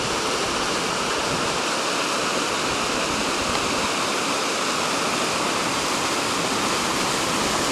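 Mountain torrent of white water rushing through a narrow rock gorge: a steady, unbroken rush.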